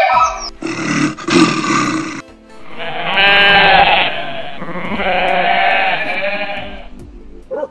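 Goats bleating: a rough, harsh call, then two long wavering bleats one after the other.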